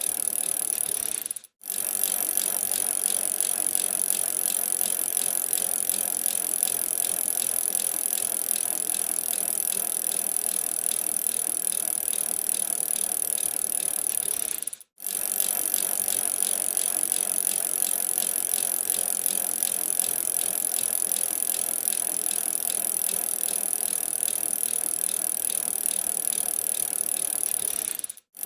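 Bicycle being ridden: a steady mix of rattling and fast ticking from the moving bike. The sound cuts out for an instant three times, about 13 seconds apart, as the recording loops.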